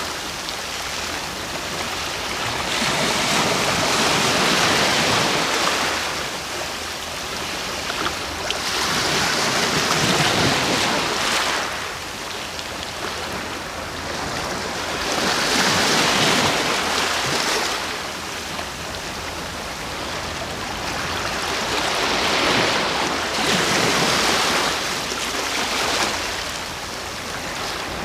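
Ocean waves breaking and washing on the shore at night, in slow rolling swells, each surge rising and falling about every six or seven seconds, four times.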